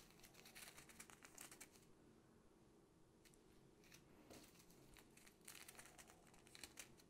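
Faint crinkling of small plastic zip bags filled with diamond-painting drills as they are picked up and moved, in two spells, one near the start and one near the end, with a few light ticks between.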